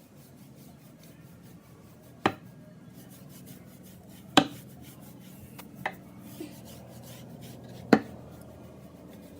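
Hand brush scrubbing a carpet to pull hair out of it, a rubbing, scraping sound. Four sharp knocks stand out over it, spread a second or two apart.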